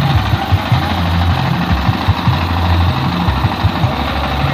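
Music played loud through a large sound system with eight subwoofers during a sound check, a deep bassline stepping between held low notes over a dense, rough upper layer.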